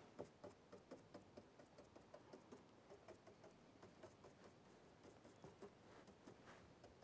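Faint, quick, uneven taps of a paintbrush dabbing acrylic paint onto a canvas, several a second.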